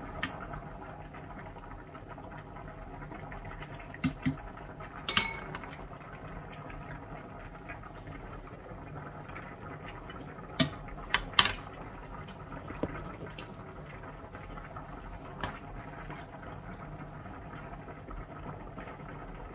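A ladle and spoon knock and clink against a pot of soup as it is served and tasted: about nine scattered sharp clinks, one ringing briefly. They sound over a steady background of the pot simmering.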